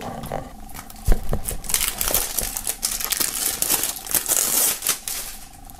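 Cellophane shrink-wrap being torn and peeled off a plastic CD jewel case, crackling and crinkling, with a single knock about a second in.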